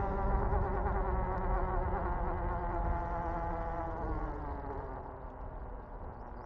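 Electric bike motor whining under power: a steady buzzing whine of several tones that slowly fades over the seconds.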